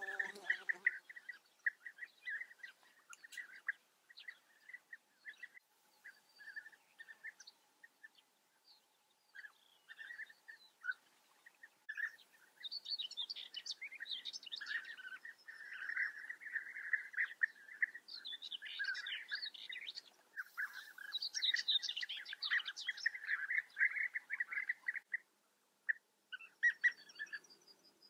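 European bee-eaters calling: many short, repeated calls, scattered at first, then building into a dense overlapping chatter of several birds with higher chirps mixed in, before thinning out again near the end.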